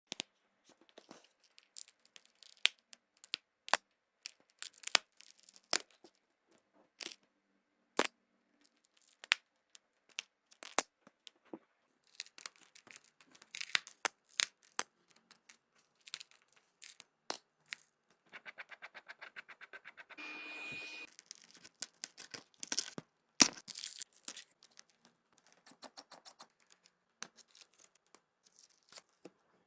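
Tools working on an iPhone's cracked back glass: many sharp clicks and taps with short tearing and scraping sounds, spaced irregularly. About two-thirds of the way through there is a few-second stretch of fast, even buzzing that carries a brief steady beep.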